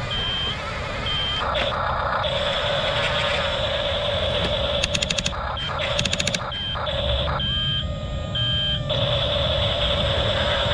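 Double E E579 RC bulldozer running, its sound module beeping a reversing alarm in short, evenly spaced beeps near the start and again later, with a steady high whine in between while it drives. Two short runs of rapid clicks come around the middle.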